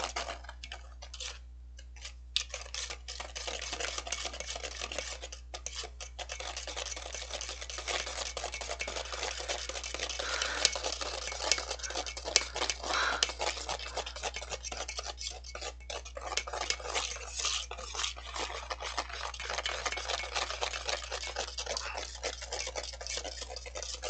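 Wire balloon whisk beating dalgona coffee mixture by hand in a stainless steel bowl, with rapid, steady strokes clattering against the metal. The mixture of sugar, coffee and water is being whipped into foam and has started to turn heavy.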